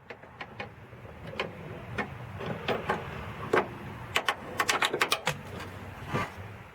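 A run of irregular sharp clicks and taps, like tools or small parts being handled, coming faster about four to five seconds in.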